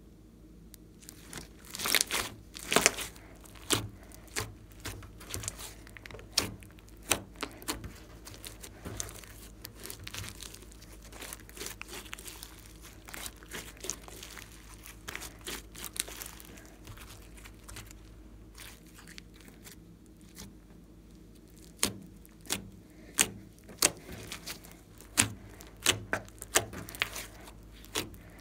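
Glossy slime with small beads mixed in being squeezed, stretched and poked by hand, giving sticky clicks, pops and crackling. The pops come in busy clusters about two seconds in and again near the end.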